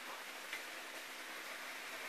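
Light handling of an electric-cart motor controller circuit board and its wires in the hand, with a single small tick about half a second in, over a steady faint hiss and low hum.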